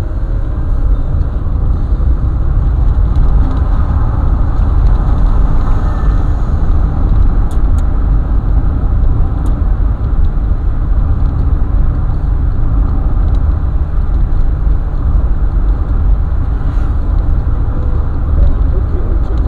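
Car driving along a road: a steady, loud low rumble of road and engine noise.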